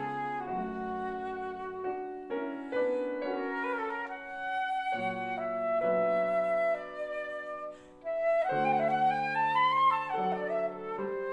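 Concert flute and grand piano playing classical music together: the flute holds sustained melody notes over piano chords. About eight seconds in the music briefly drops away, then the flute plays a rising run.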